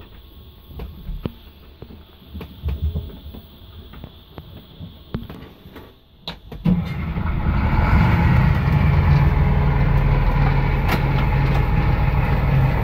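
Sailboat's inboard engine comes on abruptly about six and a half seconds in and runs loud and low-pitched, heard close up in the engine room; this is the engine that made a weird noise and leaked oil into the bilge, and it sounds horrible. Before it, faint scattered knocks.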